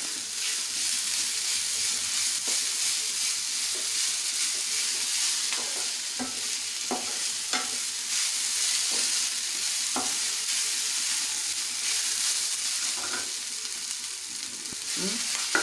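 Grated potato and onion sizzling in hot oil in a pan, a steady hiss. They are being stirred, with the spatula scraping and tapping the pan several times.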